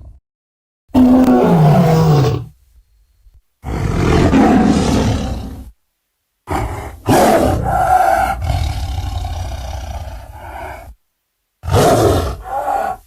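Sound-designed dinosaur roars for a Megalosaurus, layered from stock dragon roars and big-cat roars (jaguar, tiger, leopard). Four separate roars come with dead silence between them; the first falls in pitch, and the third is the longest, at about four seconds.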